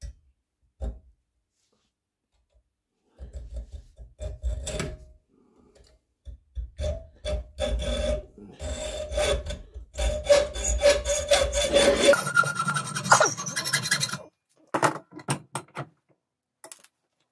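Hand tool worked in fast back-and-forth strokes on a small part for a homemade adjustable peep sight. The strokes come in several runs with short pauses, with a ringing tone running through them that rises higher about twelve seconds in. They stop about three seconds before the end, leaving a few separate knocks.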